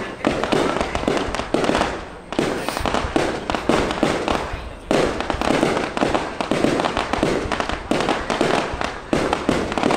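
Aerial fireworks going off in rapid succession: a dense, unbroken run of bangs and crackles as the shells burst overhead.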